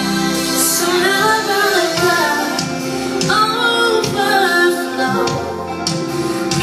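Gospel song: a woman singing long, wavering held notes over a steady accompaniment.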